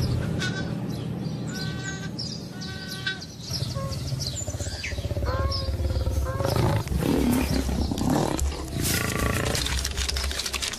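Big cats calling: a run of short calls that bend in pitch, over a steady low rumble.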